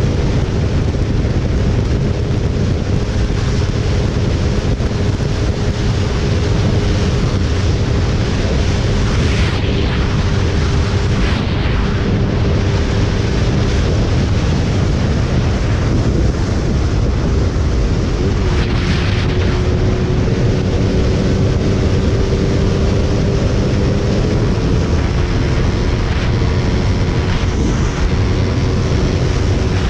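Motorcycle riding at highway speed: heavy wind buffeting the microphone over the engine's steady drone, which shifts pitch slightly a little past halfway.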